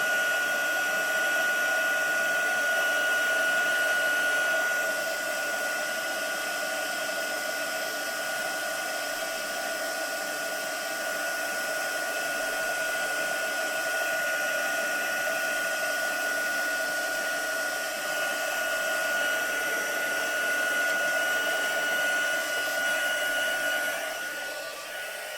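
Embossing heat tool blowing steadily with a constant high whine as it melts embossing powder, switched off and winding down at the very end.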